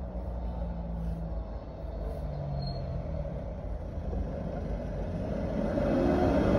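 Road traffic heard from inside a parked car: a steady low rumble of passing vehicles, growing louder near the end as a vehicle goes by.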